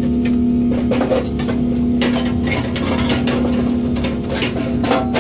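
Irregular clinks and rattles of metal parts being handled: a propane hose and regulator worked through a sheet-steel grill cart frame, over a steady low hum.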